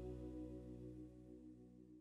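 The last held chord of the closing song rings on and fades out steadily, dying away toward silence.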